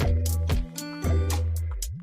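Background music: an upbeat track with bass, plucked guitar and a steady drum beat.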